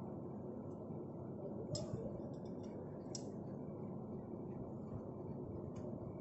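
Two light metallic clinks, about a second and a half apart, over a steady low background hum.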